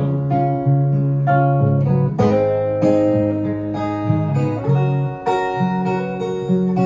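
Solo guitar playing the instrumental opening of a song: plucked and strummed chords struck about every half to three-quarters of a second, each left ringing.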